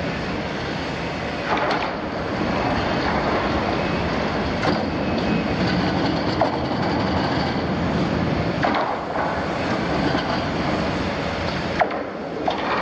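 Liebherr 974 demolition excavator running its diesel engine under load while its shear works the torn steel wall of a double-walled oil tank: a dense, steady machine and metal noise with a few sharp metallic clanks.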